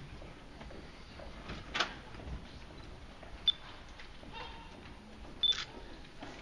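Low murmur of a large hall with three sharp clicks, the loudest about halfway through; the second and third come with a short high beep, like cameras beeping to focus and clicking their shutters.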